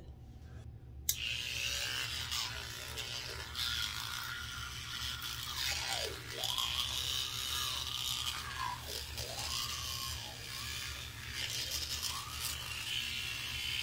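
Toothbrush scrubbing a child's teeth, starting about a second in, a steady brushing noise whose tone shifts slowly as the brush moves around the mouth.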